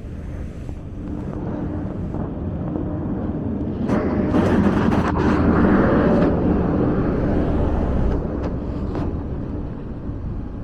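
Street traffic with motor vehicles running; one passes close, growing louder about four seconds in and fading after about eight seconds.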